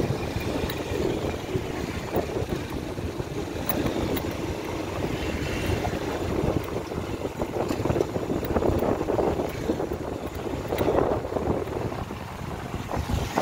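Wind buffeting the microphone on a moving motorcycle, a steady rushing noise that swells and dips, with road and engine noise underneath.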